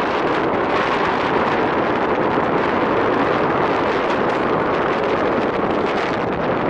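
Wind rushing over the microphone of a camera held out on a pole in tandem paraglider flight: a steady, loud rushing noise.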